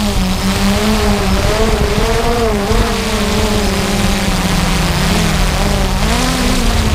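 An engine running steadily and loudly, its pitch wavering slightly up and down, over a constant rushing noise.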